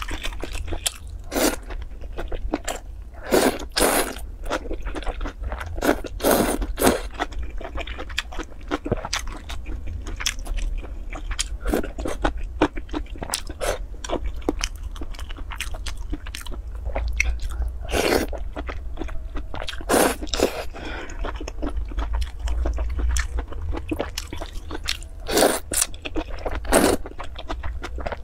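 Close-miked eating of noodle soup: chewing, with noodles slurped in from chopsticks, heard as many short, irregular mouth noises.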